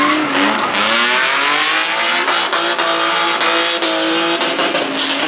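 BMW E30 drifting: its engine revs rise and fall under throttle while the tyres squeal in a continuous slide.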